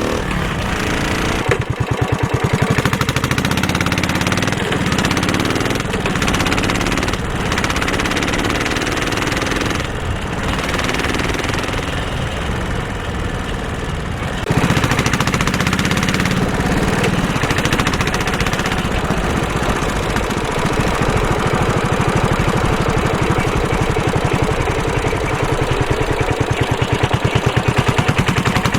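Suzuki Savage 650's single-cylinder four-stroke engine lugging at low revs in a high gear, its exhaust coming as slow, separate knocking pulses while the bike snatches and jerks under acceleration. It gets louder about halfway through.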